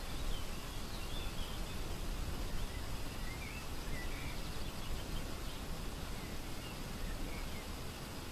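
Wind noise, a steady hiss with a flickering low rumble, with a few faint, short bird chirps scattered through.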